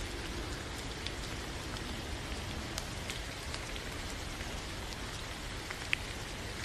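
Rain falling: a steady hiss with scattered drops tapping, and one sharper drop about six seconds in.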